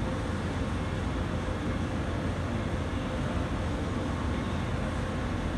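Steady low rumble of a departing Airbus A320-214's CFM56 jet engines climbing away in the distance.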